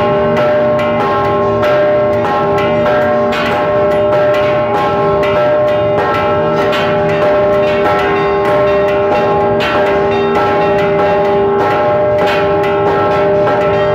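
Church bells rung in a rapid festive repique. A stationary bell is struck many times a second by its clapper, pulled by a hand rope, while other bells ring together with it. Their hum stacks into a dense, continuous clangour.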